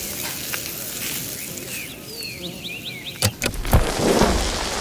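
Food sizzling on a barbecue grill with birds chirping. About three seconds in, sharp cracks of thunder break in, and heavy rain with rumbling thunder follows.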